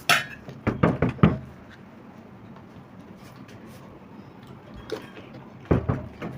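Bottle flipped in a bottle-flip game, knocking as it lands and tumbles on a hard surface: a quick cluster of knocks in the first second or so, and more knocks near the end.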